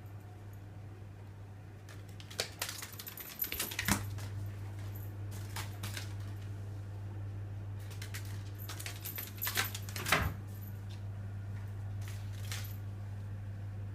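Ball of paper batted by a cat and skittering across a hard floor, in two bursts of quick rattling clicks with a few single ticks between. A steady low hum runs underneath.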